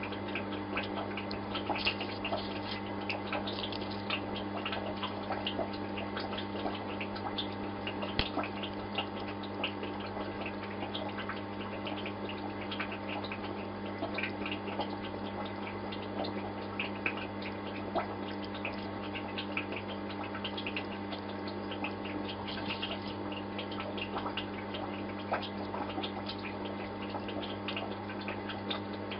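Aquarium water bubbling and trickling with many small drips, over a steady low electrical hum, as from a filter or air pump running.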